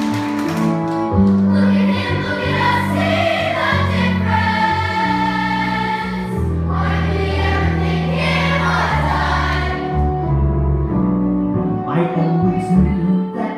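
Musical-theatre song: young voices singing together over a steady instrumental backing track.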